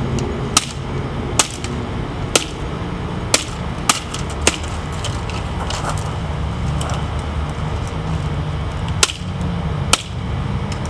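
Buck 632 Masa fixed-blade knife chopping hard, springy dried palm-frond stalks against a wooden stump: about eight sharp chops, six in the first four and a half seconds, then a pause and two more near the end.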